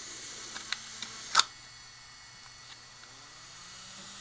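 A few small plastic clicks and taps from handling the parts of a 1/30-scale RC crawler, with one sharper click about a second and a half in, while cramped FPV wiring is pressed into the body.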